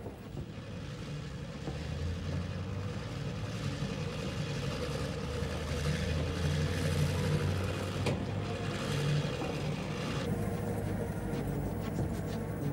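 A car driving, heard as a steady low engine and road rumble that grows a little louder about two seconds in.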